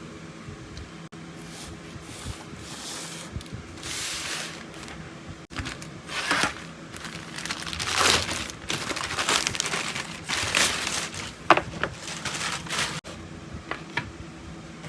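Plastic packaging crinkled and handled in irregular bursts, over the steady hum of an electric fan.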